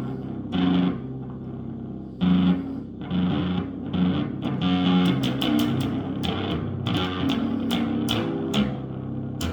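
Electric bass guitar played freestyle for strange noises: low plucked notes ringing with overtones, then from about halfway a quick run of sharp, clicky string attacks.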